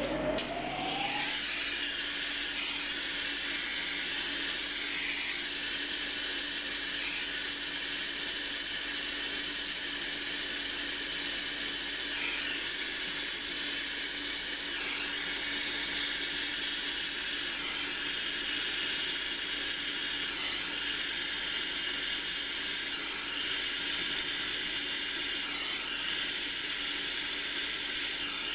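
Gas torch flame hissing steadily while it heats an aluminium A/C radiator for brazing with aluminium brazing rod, with a short rising whistle in the first second.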